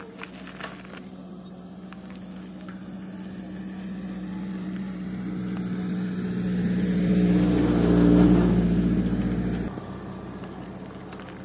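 An engine running at a steady pitch, growing steadily louder to a peak about eight seconds in, then dropping away abruptly.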